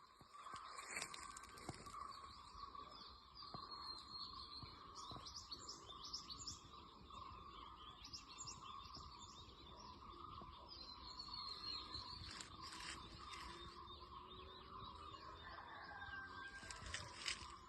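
Faint birds chirping, with many short calls scattered throughout over a steady, even drone.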